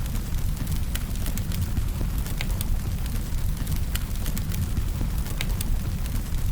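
Firewood fire burning, with a steady low rumble of flame and sharp crackles and pops about once or twice a second.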